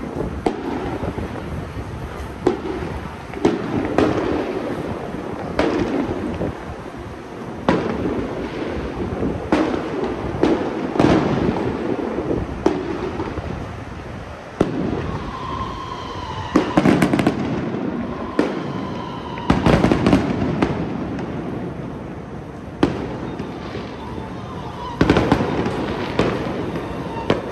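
Firecrackers going off during a Mazu procession: single sharp bangs every second or two, with rapid strings of cracks about 17 and 20 seconds in.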